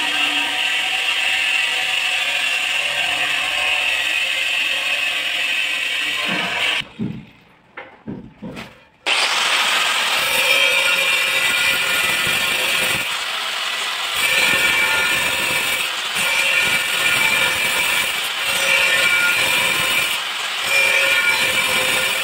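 Angle grinder with a diamond blade cutting tile: a steady, loud grinding whine. It breaks off for about two seconds near the middle, then resumes.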